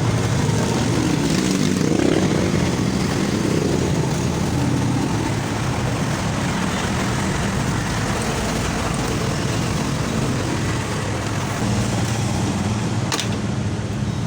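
Steady motor-vehicle engine hum with traffic-like noise, and a single sharp click near the end.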